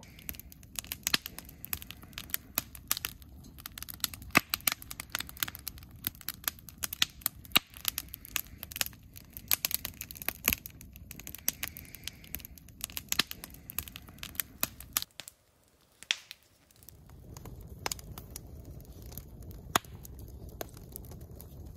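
Wood campfire crackling with dense, rapid sharp pops. It breaks off briefly about fifteen seconds in, then returns as a steadier low rush of flames with only occasional pops.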